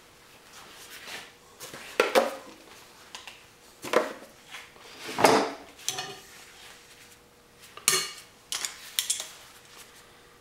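Steel plates and a steel collar being set down and slid on a metal workbench: a series of sharp metal clanks and scrapes, every second or so, some ringing briefly.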